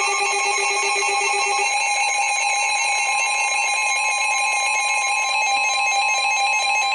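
NOAA Weather Radio alert sounding for a new warning: a loud electronic alarm of several steady tones with rapid pulsing beeps laid over them. The beeping stops near the end while one steady tone carries on.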